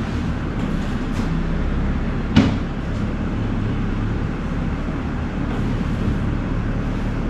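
Electric stand fan running with a steady low hum. A single sharp clack about two and a half seconds in, something knocked or set down on a cabinet.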